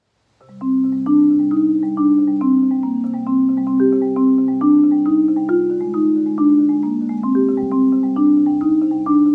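Solo marimba played with mallets: a steady, flowing pattern of notes begins about half a second in, with low notes ringing under quicker higher ones.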